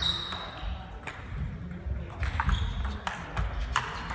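Table tennis balls clicking irregularly on tables and bats, from several games in play at once.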